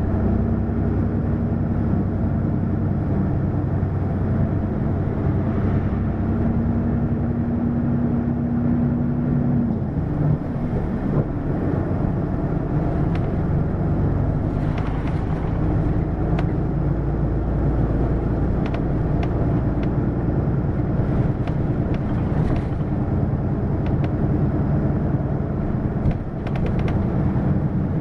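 Hino LKG-KV234N3 city bus's diesel engine running steadily for about ten seconds, then its note changes and climbs gradually as the bus gets under way, with a few faint clicks and a brief drop in level near the end.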